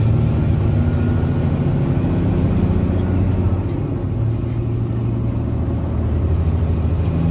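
Diesel engine of a heavily loaded Peterbilt semi truck running down the road, heard from inside the cab: a steady low drone whose pitch shifts a little about halfway through.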